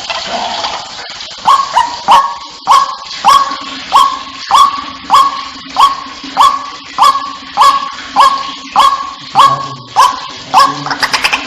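White-breasted waterhen (ruak-ruak) calling: a long, regular run of short, identical call notes, nearly two a second, starting about a second and a half in and stopping near the end. This is the bird's call as played to lure waterhens for hunting.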